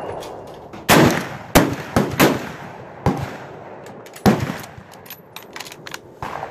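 Rifle shots from several shooters on the firing line: about six sharp reports at uneven spacing in the first four and a half seconds, three of them in quick succession, each trailing off in an echo. Lighter clicks and knocks follow near the end.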